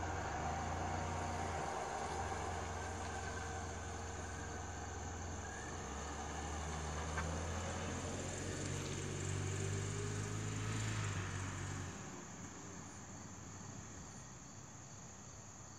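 DeLorean DMC-12's V6 engine running as the car drives off, its low hum shifting in pitch a few times, then fading and dropping away about twelve seconds in. Steady chirring of insects is left behind.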